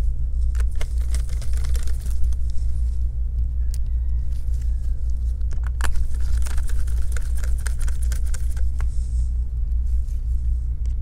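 Small clicks and scrapes of a precision Phillips screwdriver driving the battery screws into a laptop, busier about six seconds in, over a steady low hum.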